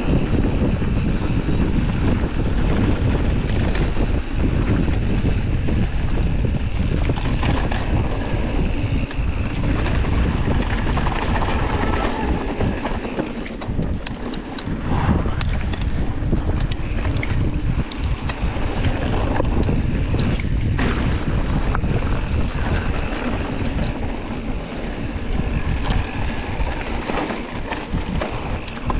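Wind rushing over an action camera's microphone during a fast downhill mountain-bike descent, with the tyres on dirt and the bike rattling and clicking over bumps. The clicks and knocks thicken about halfway through.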